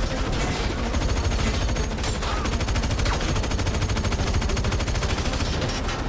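Automatic gunfire in a film gunfight: rapid shots follow one another closely and run on without a break.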